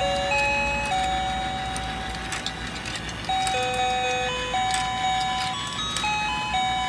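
Battery-operated toy fishing game playing its tinny electronic tune, a simple melody of beeping notes stepping up and down as the pond turns. A few sharp plastic clicks sound over it.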